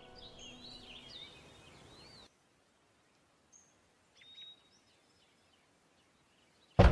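Birds chirping with quick rising and falling calls over a soft background hiss for about two seconds, then near silence broken by a single faint chirp. Right at the end, loud knocking on a door begins.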